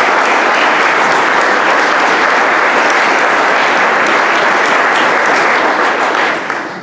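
Audience applauding: a steady round of clapping that tapers off near the end.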